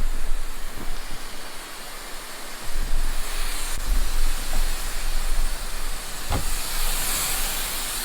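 Aerosol insect fogger (Durvet Dairy Bomb, a pyrethrin spray) hissing steadily as it is sprayed into an emptied chicken coop, with a couple of light knocks.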